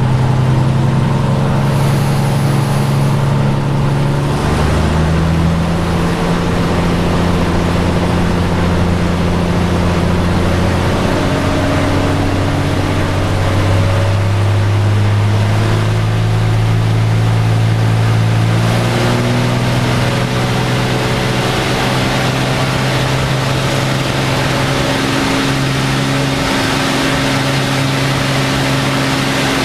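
Single-engine propeller trainer's engine and propeller running at takeoff power, heard inside the cockpit as a loud, steady drone, with several held tones that shift in pitch every few seconds.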